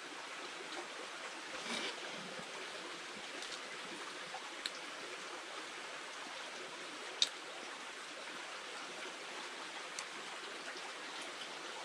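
Stream rushing steadily over rocks, with a few faint clicks on top; the sharpest comes about seven seconds in.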